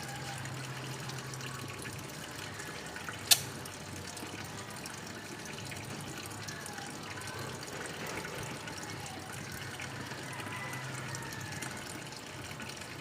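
Automatic washing machine filling with water: a steady rush of water running into the drum, with a low hum that comes and goes. There is one sharp click a little over three seconds in.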